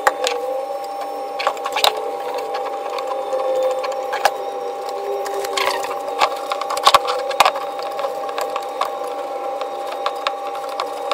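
Folded tissue paper damp with glass cleaner rubbing and scraping inside an old BMW headlight, against the chrome reflector and the glass, giving a run of scratchy crackles and sharp clicks over a faint steady tone.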